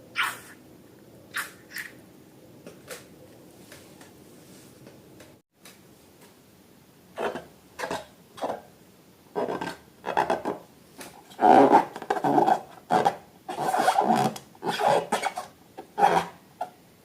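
Slime being mixed and squeezed by hand: a run of short rubbing, scraping strokes. They are few and faint for the first seven seconds, then louder and closer together.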